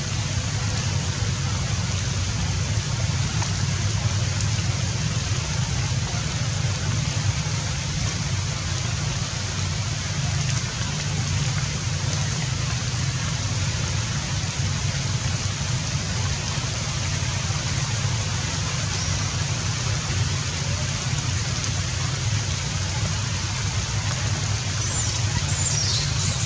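Steady outdoor background noise: an unbroken hiss with a low rumble underneath, and a brief high-pitched sound near the end.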